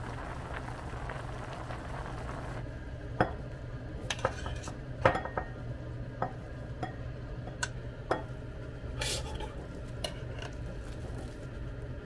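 A pot of ramyeon bubbling on a portable gas burner, then metal chopsticks knocking and clinking against the pot and bowls as the noodles are lifted out and served, a sharp clack every second or so. A steady low hum runs underneath.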